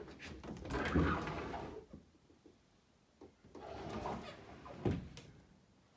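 Rustling and handling noise from a handheld phone camera being carried and swung around, with a sharp knock about five seconds in.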